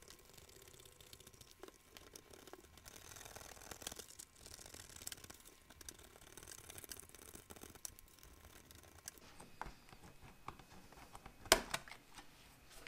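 P-38 can opener being worked around the rim of a steel ration tin: faint, irregular small clicks and metal scrapes as the blade cuts the lid, with one sharp click near the end.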